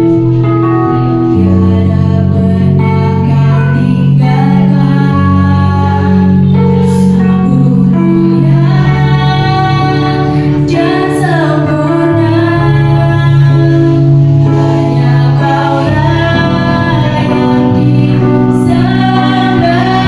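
Two girls singing a duet into microphones, amplified, over sustained chords from an electronic keyboard.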